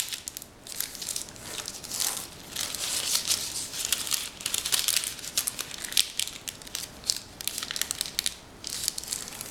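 Parchment paper being folded and creased by hand, crinkling and crackling irregularly as the edges are folded in to the middle.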